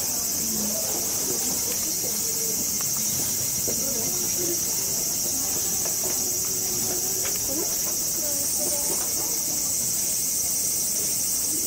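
A steady, high-pitched chorus of insects singing without a break, with faint distant voices underneath.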